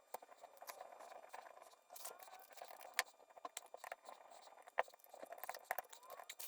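Faint scattered clicks, taps and light scraping of small metal parts and tools being handled while a motorcycle brake caliper is put back together, with two sharper clicks about three seconds in and near five seconds in.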